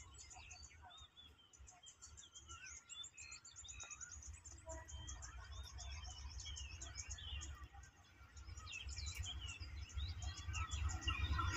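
Small birds chirping and trilling throughout, over a faint low rumble that grows steadily louder over the last few seconds as a diesel freight locomotive approaches.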